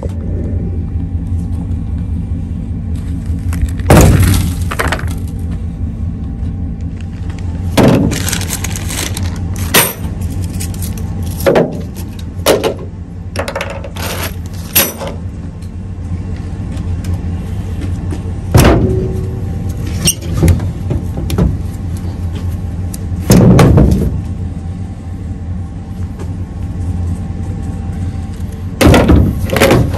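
Knocks, clatters and heavy thuds of items being set down in a pickup truck bed, among them a plastic bag of material and a freshly cut cedar stump, repeating every few seconds over a steady low hum.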